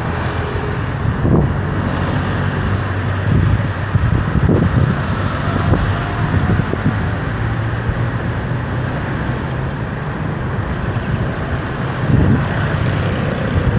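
Road traffic: vehicle engines and tyres making a steady, loud noise with a low hum, swelling briefly several times as vehicles pass.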